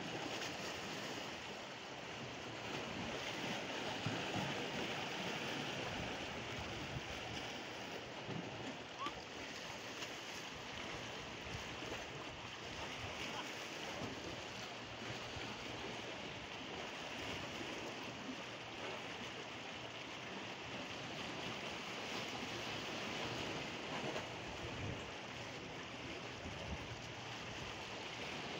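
Steady wash of sea waves and surf breaking on shallow water and breakwater rocks.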